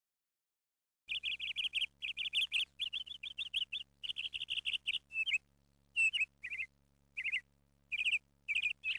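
Small birds chirping in rapid trilled runs over a faint steady hum, starting abruptly about a second in; the chirps come densely at first, then in shorter, sparser bursts from about five seconds on.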